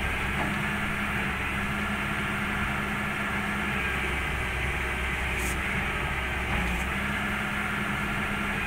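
Heavy diesel engine idling steadily with a low hum.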